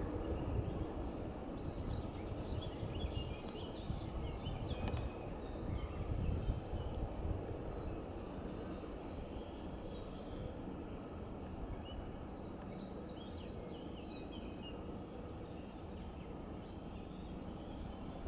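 Wind rumbling on the microphone, with a faint steady hum underneath. Small birds chirp in short bursts at times.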